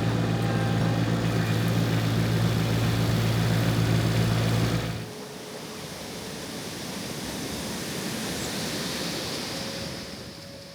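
An engine running at a steady speed, cutting off abruptly about five seconds in and leaving a quieter, steady outdoor hiss.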